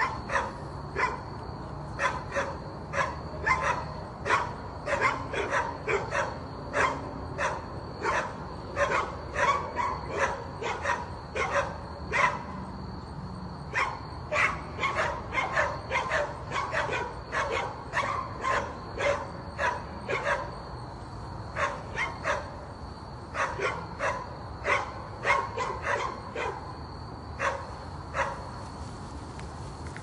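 Dog barking repeatedly in quick, irregular runs of short barks, with a few brief pauses between runs.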